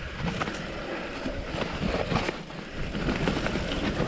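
Commencal Meta AM mountain bike riding down a forest singletrack: tyres rolling over dry fallen leaves and dirt, with many short rattling clicks from the bike and wind rushing on the microphone.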